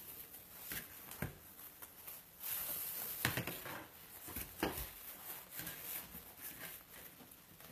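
Ribbon and deco mesh tubing rustling and crinkling as they are wrapped by hand around a wreath form, with a few soft knocks from the handling.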